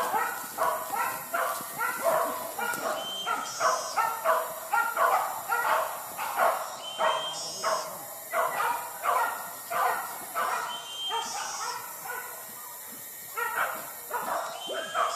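Hunting dogs barking and yelping over and over, about two barks a second, in pursuit of a wild boar. The barking slackens briefly near the end before starting again.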